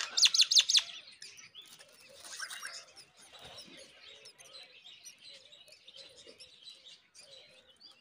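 Myna nestlings begging for food: a loud run of rapid, shrill chirps in the first second while the parent feeds them, another burst about two seconds in, then fainter chirping.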